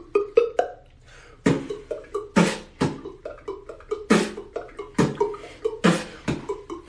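Vocal beatboxing: mouth-made kick and snare hits in a rhythm about a second apart over a hummed bass line. The hits get louder about a second and a half in.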